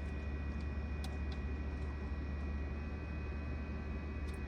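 Steady low hum with a few faint, thin high tones above it and a couple of small, faint clicks.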